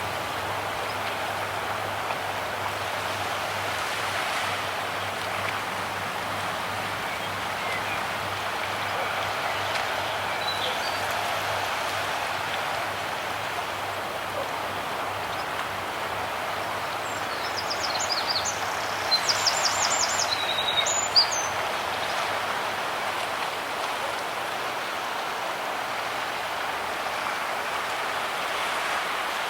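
Calm seashore ambience: a steady wash of small waves on the shore. About two-thirds of the way through, birds give a brief run of high chirps, ending in one sharp click.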